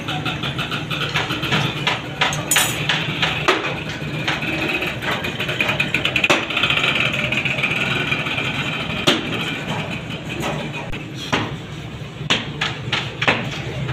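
Hand-packing and smoothing moulding sand in a steel casting flask: scattered sharp knocks and taps on the metal box, with a scraping hiss of sand being rubbed flat in the middle, over a steady low mechanical hum.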